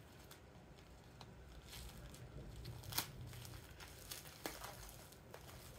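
Faint crinkling and rustling of packaging being handled and opened by hand, with scattered small clicks and a sharper click about three seconds in.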